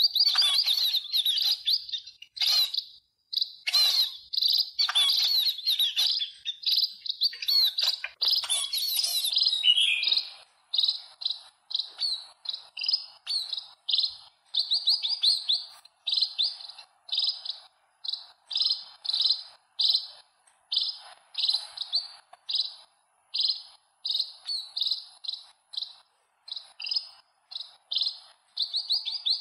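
Eurasian tree sparrows chirping in a busy flock, many short chirps overlapping. About ten seconds in this gives way to a single fledgling's short chirp repeated evenly, about two a second.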